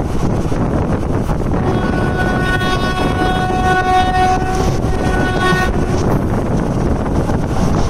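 Express train running at speed, heard from on board: a steady rumble of wheels and air, with a train horn sounding one held chord for about four seconds, starting about two seconds in.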